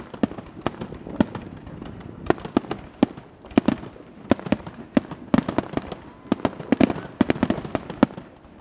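Fireworks finale: aerial shells bursting in rapid, irregular volleys of sharp bangs, several a second at the peaks, over a continuous crackle.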